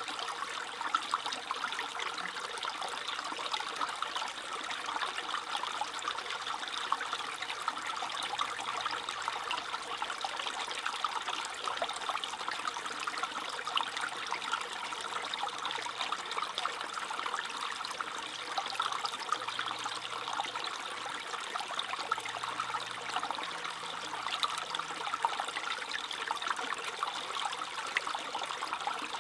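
Stream water trickling and babbling steadily over stones.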